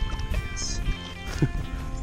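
Background music, a guitar-led track with plucked notes.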